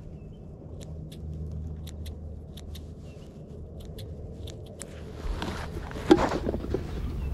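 Boat motor running at a low, steady hum, with faint light ticks over it. About five seconds in, a louder rustling noise comes in, with one sharp knock near six seconds.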